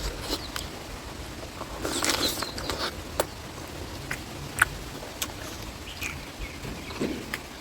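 Close-up eating sounds of someone eating chicken curry: chewing with scattered sharp wet mouth clicks and smacks.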